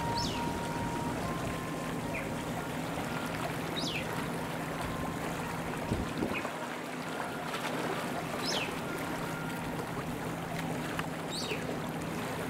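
Harbor water lapping against the rocks at the foot of a seawall, an even wash with a steady low hum beneath it. About four short, high falling chirps are spread through it, and there is a single bump about halfway through.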